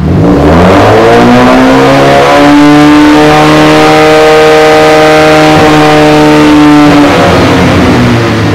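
Toyota Yaris four-cylinder engine revved through an open exhaust, its catalytic converter and silencers removed. The note climbs for about two seconds, holds steady at around 3000 rpm, then drops back to idle near the end; it is loud.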